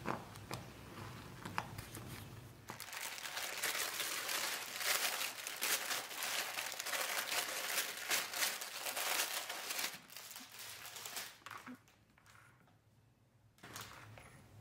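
Clear plastic packaging crinkling and rustling for several seconds as a silicone mold is unwrapped from it, after a few light scrapes of a spatula in a saucepan; the crinkling dies down about ten seconds in.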